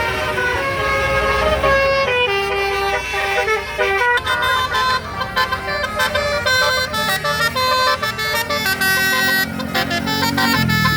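Bus's Basuri telolet horn, a multi-trumpet musical air horn, playing a tune: a quick run of held notes stepping up and down in pitch, several sounding together, with a lower note held near the end.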